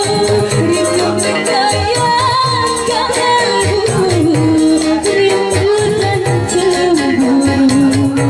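A woman singing an amplified, wavering melody through a microphone, backed by a live band of electronic keyboard and kendang hand drum playing a steady beat.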